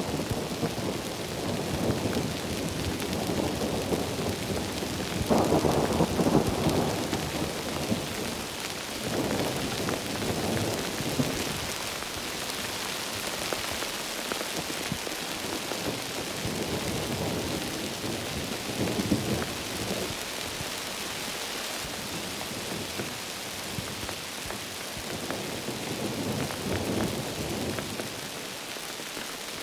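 Heavy rain falling steadily as an even hiss, with low rolling thunder rumbles swelling in and out several times, the strongest about five to seven seconds in.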